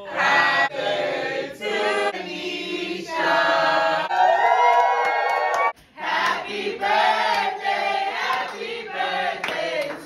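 A small group of people singing together, their voices overlapping like a chant, with a sudden brief break about six seconds in.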